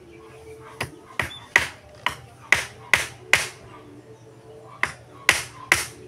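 A hammer driving nails into old wooden planks: a run of about seven sharp blows at a steady pace of roughly two to three a second, a pause of over a second, then three more blows near the end.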